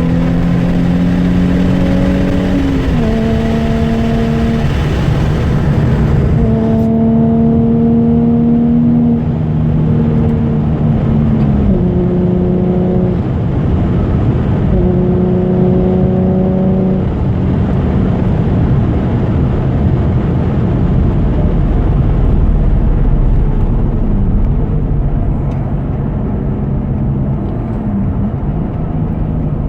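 2006 Nissan 350Z's 3.5-litre V6 through a titanium cat-back exhaust, heard inside the cabin while driving: a steady engine drone whose pitch holds for a few seconds at a time and steps down several times, with more low rumble toward the end.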